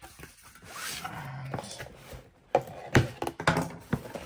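Cardboard box being handled and its top flaps pulled open: rustling and scraping of cardboard, with several sharp knocks in the second half.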